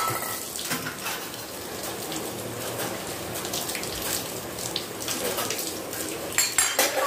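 Water running from a kitchen tap into the sink as dishes are washed, with a few sharp knocks near the end.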